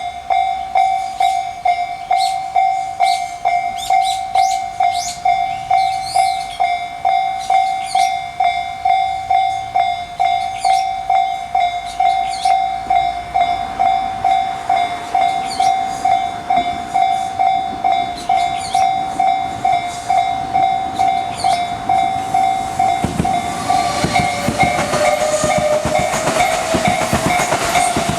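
Japanese level-crossing electronic bell ringing steadily at about two strokes a second, in the Tobu Tojo Line style of crossing tone. From about halfway a train's approach rises under it, and for the last few seconds the train passes over the crossing with loud rumbling and wheel clatter.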